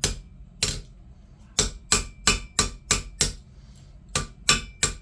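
Hammer blows crimping 18 gauge copper wire on a makeshift anvil: sharp strikes about three a second in short runs, with two brief pauses, some leaving a faint metallic ring.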